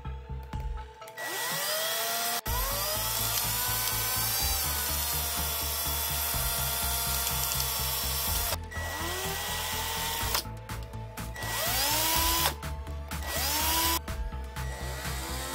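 Aimsak 14.4 V cordless drill run in repeated trigger bursts. Its motor whines up in pitch at each start, while a file scrapes against the spinning threaded spindle to clean up its stripped threads. Background music plays underneath.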